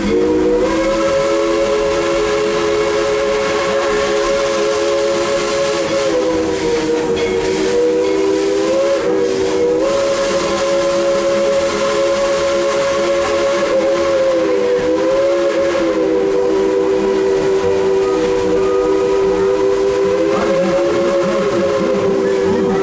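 Steam locomotive's chime whistle blowing one long, loud chord of several close tones, its pitch sagging and recovering slightly a few times, with a light steam hiss beneath.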